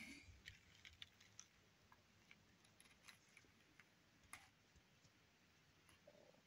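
Near silence with faint, irregular clicks and crackles of newspaper pages being handled and turned.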